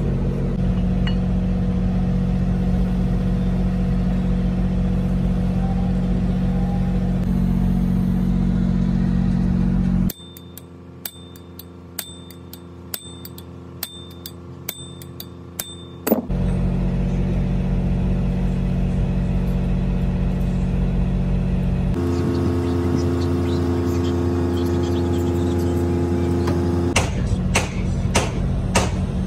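A steady low mechanical drone holding several fixed pitches, broken around the middle and again near the end by quieter stretches of sharp metallic clicks, about two a second, as bolts on an engine's timing-gear housing are turned with a socket wrench.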